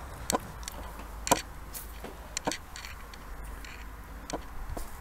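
Footsteps inside an abandoned house: a few irregular sharp taps and knocks, roughly one a second with the loudest about a second in, over a low steady rumble.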